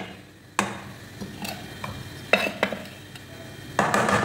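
Metal spoon scraping and clinking against an aluminium pot while spooning tomato sauce over stuffed vegetables; a few sharp knocks, the loudest cluster near the end.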